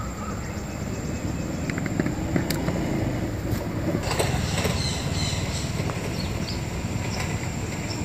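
Steady rumble of road traffic, swelling as a vehicle passes around the middle, with a few faint clicks.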